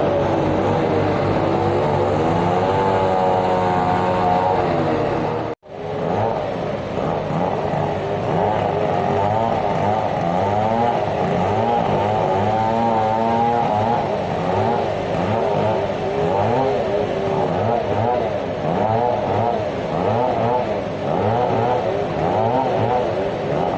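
Sawmill band saw and its drive engine running, the pitch wavering up and down as the load changes. There is a brief dropout about five and a half seconds in.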